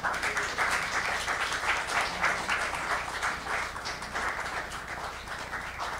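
An audience applauding: many hands clapping in a dense, steady patter that eases off toward the end.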